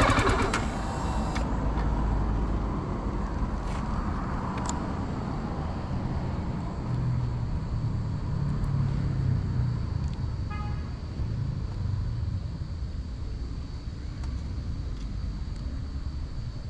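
Low, steady motor-vehicle engine rumble, growing a little stronger for a few seconds in the middle, with a short faint beep about ten seconds in.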